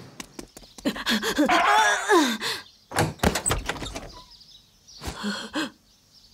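Cartoon sound effects of a shop door being eased open: a series of sharp clicks and knocks, with a squeaky gliding sound near the middle.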